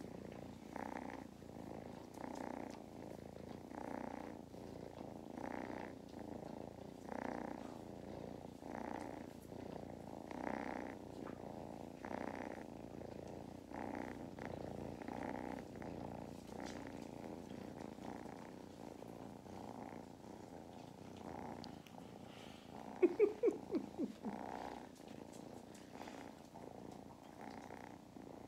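Kittens purring loudly right against the microphone, a steady rumble that swells and eases with each breath about every second and a half. About two-thirds of the way through, a brief run of quick, higher-pitched sounds stands out above the purring.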